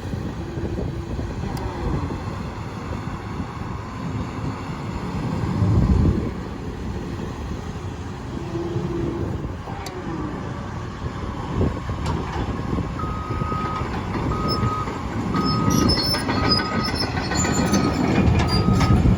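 Caterpillar 329E excavator's diesel engine running under hydraulic load, with short hydraulic whines and a surge about six seconds in. From about thirteen seconds in the travel alarm beeps steadily, about once a second, as the machine tracks.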